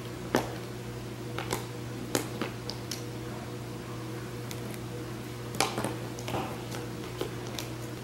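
Scattered light clicks and taps of plastic markers being picked up and set down against a plastic marker case, about a dozen in all, over a steady low hum.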